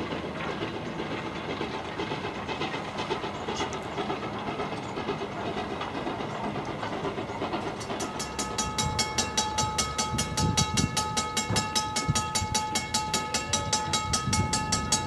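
Full-scale steam Thomas the Tank Engine locomotive running with its train: an even rumble at first, then, about eight seconds in, louder and closer with a quick regular beat of exhaust chuffs, about five a second, over a steady high two-note tone.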